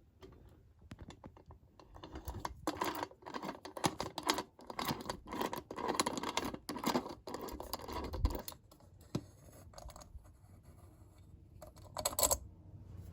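Prizes and their packaging being handled: a busy run of rustling, scratching and small clicks from about two seconds in until about nine seconds, then a short burst of the same near the end.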